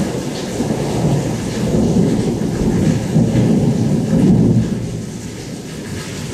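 Thunder rumbling low over a steady hiss of rain. The rumble swells from about a second and a half in, peaks just past four seconds, then eases off.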